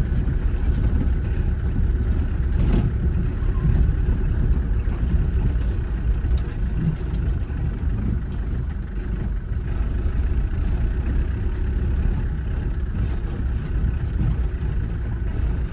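Car driving slowly along a dirt and gravel track, heard from inside the cabin: a steady low rumble of engine and tyres, with a single knock about three seconds in.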